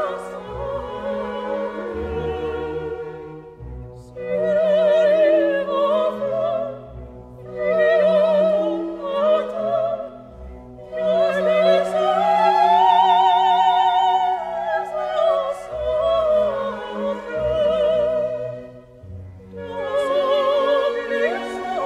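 Music: an operatic voice singing with a wide vibrato over an orchestra, in phrases a few seconds long, with one long note that swells and falls in the middle.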